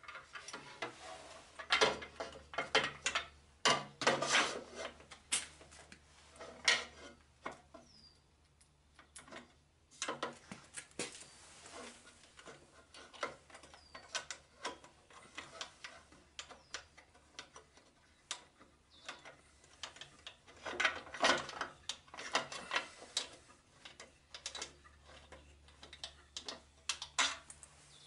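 Irregular clicking, rattling and short scrapes of metal parts and hand tools as screws are worked into the jointer's fence mounting, with bursts of ratchet-like clicking.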